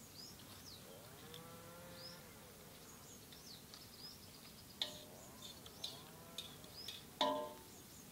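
Birds chirping with short high calls throughout, while a distant animal gives two long rising-and-falling calls. A few sharp clicks, and a brief louder call near the end.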